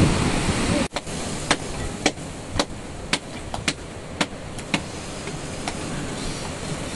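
Wind-like noise that cuts off suddenly about a second in, followed by a series of sharp knocks, roughly two a second and irregularly spaced.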